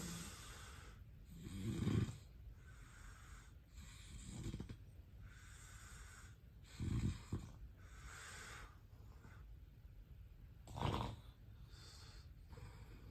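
A sleeping person snoring. There are five low snores at uneven intervals, the loudest about two, seven and eleven seconds in, with faint hissing breaths between them.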